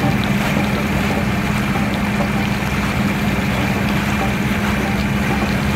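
Floodwater gushing up out of a street manhole: a steady rushing of water with a constant low hum underneath.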